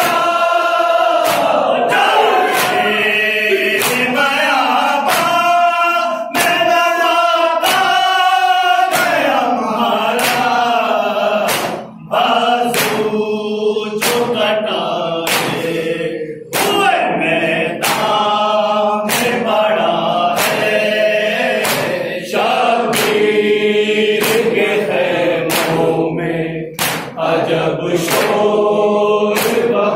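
Group of men chanting a noha in unison, unaccompanied, with loud regular chest-beating slaps (matam) roughly once a second.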